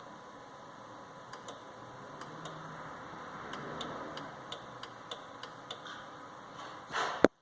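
Relay clicking repeatedly at an uneven pace while the 2007 Dodge Charger 3.5 L is asked to start, with no starter cranking: the relay clicks but the engine doesn't turn over. A brief loud rustle comes near the end.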